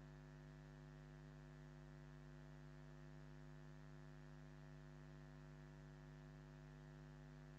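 Faint, steady electrical mains hum, a stack of even tones over a light hiss.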